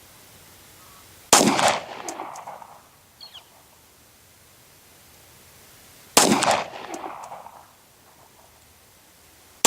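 Two 9mm shots from a Glock 17 pistol, about five seconds apart. Each is a sharp crack followed by an echo that trails off over about a second.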